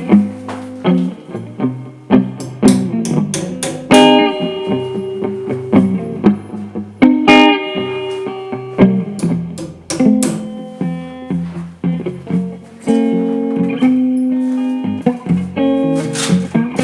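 Guitar music: plucked notes and chords on a guitar.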